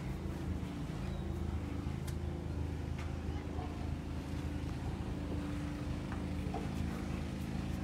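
A machine running with a steady low hum that does not change in pitch, with a few faint clicks over it.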